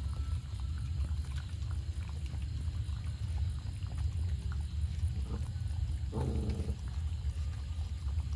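Cats and a dog eating from bowls: small clicks of chewing and lapping over a steady low rumble, with one brief animal call about six seconds in.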